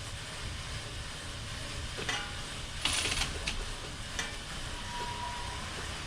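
Hand ratchet clicking in a few short spells about two and three seconds in, driving in the 10 mm bolt of a front ABS wheel-speed sensor, over steady workshop background noise.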